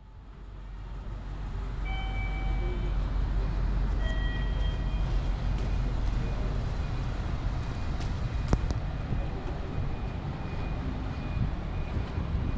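City street ambience: a steady low rumble of traffic that fades in over the first couple of seconds, with a few short high tones around two and four seconds in and a sharp click past the middle.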